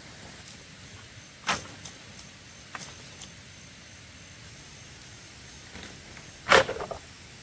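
A few short knocks and clicks over a steady hiss. One knock comes about a second and a half in, and the loudest comes near the end, followed by a few quick smaller clicks.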